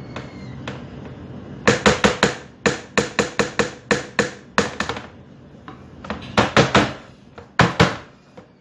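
Round metal cake pan full of batter being knocked: runs of sharp knocks, several a second, with short pauses between the runs.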